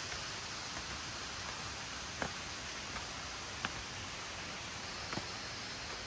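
Steady rushing of a jungle waterfall's falling water, with a few short clicks about two, three and a half, and five seconds in.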